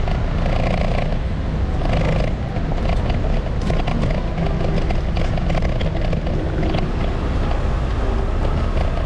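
Steady low rumble of an electric kickboard ridden over brick paving, with wind noise on the action camera's microphone and scattered light clicks and rattles.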